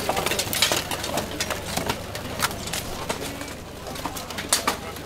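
Armoured fighters in a full-contact medieval melee: irregular sharp clanks and knocks of weapons striking steel armour, helmets and shields.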